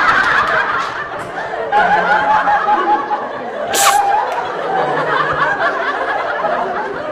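People laughing and giggling, with a brief sharp high sound about four seconds in.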